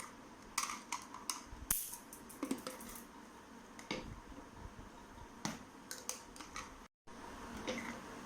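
Plastic mixer-grinder juicer jar and its parts being handled: scattered light clicks and knocks.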